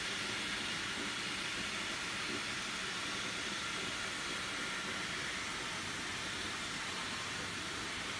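Water running steadily from a shower head into a filled inflatable baby bath, an even hiss of spray and splashing.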